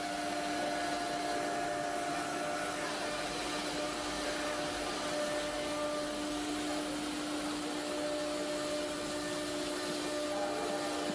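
9 kW spindle of a 4-axis foam CNC router running steadily: a constant motor whine over an even rushing noise.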